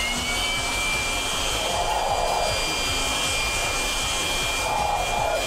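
Leaf blower on its maximum setting. It comes up to speed at the start and then runs steadily, a high motor whine over the rush of air, with its nozzle blowing into a man's mouth.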